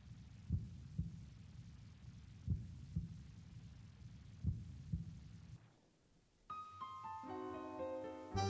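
Tango dance music: a slow heartbeat-like double thump about every two seconds over a low drone, which stops about six seconds in. After a brief pause a piano plays a run of notes, and the full ensemble comes in loudly at the very end.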